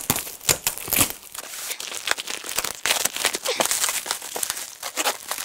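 Clear plastic stretch wrap crinkling and tearing in irregular crackles as it is cut with a utility knife and pulled off a cardboard box.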